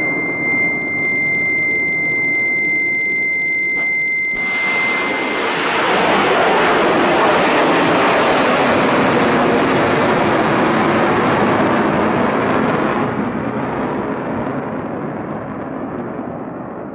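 Roar of a ship-launched missile's rocket motor, with a steady high whine over it at first. About four seconds in a much louder roar starts abruptly as a missile leaves the launcher, then it fades from about thirteen seconds in as the missile climbs away.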